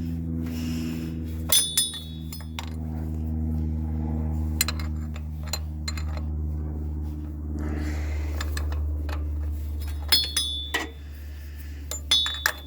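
A steel wrench clinking against the 15 mm nut and bracket of a transmission shift linkage, in a few short clusters of sharp, ringing metal clicks. A steady low hum runs underneath.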